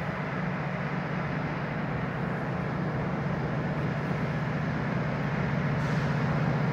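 Distant GO Transit commuter train's diesel engine drone as the train approaches, a steady low hum growing gradually louder.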